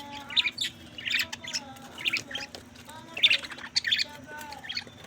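Pet budgerigars chirping and squawking in quick short calls over a soft warbling chatter. A steady low hum sits under them.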